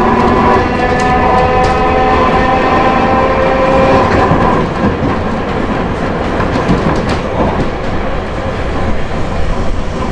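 Hankai Tramway Mo 161 tram with nose-suspended traction motors: the motor and gear whine rises slightly in pitch as it pulls away, then dies out about four seconds in, leaving the rumble of the wheels with scattered clicks over the rails.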